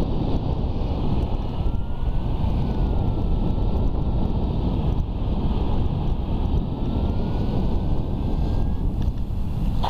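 Airflow rushing over the camera microphone as a paraglider glides low and fast, a steady buffeting wind noise. A faint thin tone slowly rises and falls in pitch underneath it.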